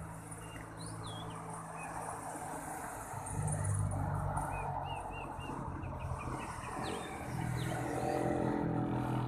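Road traffic passing below: steady engine and tyre noise that grows louder about three seconds in and again near the end as cars and a minivan drive by. Birds chirp briefly over it now and then.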